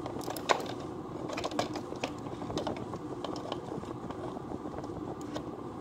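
Scissors snipping into crinkly plastic doll packaging, with the plastic crackling and rustling and irregular sharp clicks from the blades and wrap.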